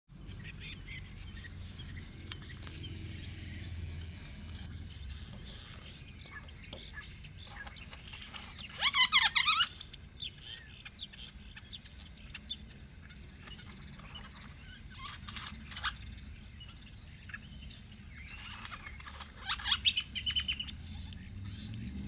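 Great-tailed grackle calling: scattered soft chirps, with two loud bursts of rapid, harsh notes about nine seconds in and again near the end.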